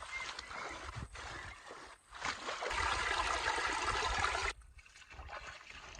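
Running stream water trickling after rain, louder for a couple of seconds in the middle and then cutting off abruptly, with wind rumbling on the microphone.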